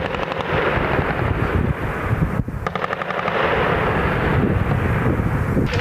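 Continuous small-arms and machine-gun fire, with a rapid burst of automatic fire about halfway through.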